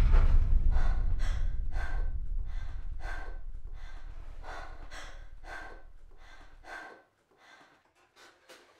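Rapid, heavy breathing, about two gasping breaths a second, over a low rumbling drone that starts loud and fades out about seven seconds in.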